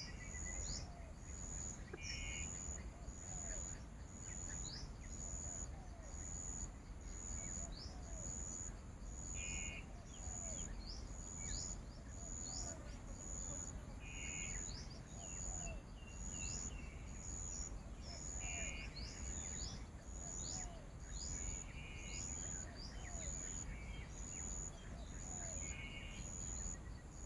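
Forest ambience: an insect's high buzzing pulse repeating about one and a half times a second, with many short falling bird whistles and brief calls every few seconds, over a low rumble.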